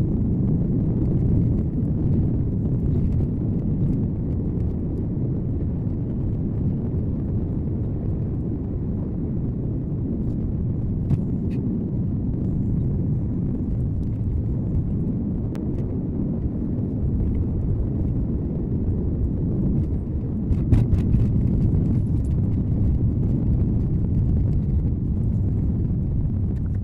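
Car driving, recorded by its dashcam: a steady low rumble of road and engine noise, with a few short knocks, several together about three quarters of the way through.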